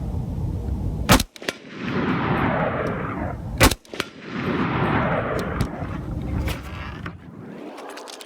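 Two rifle shots from an LMT MWS, about two and a half seconds apart. Each sharp crack is cut short by the iPhone microphone's limiting, drops out briefly, then tails off in a hiss that slowly fades.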